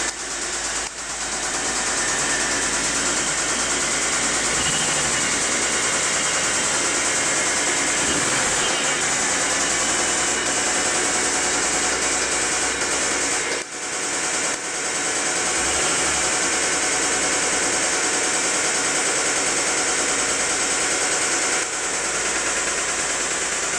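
Mitsubishi 3000GT SL's V6 engine running steadily with a fast, repetitive knocking, which the owner has apparently been told is the lifters but is not sure.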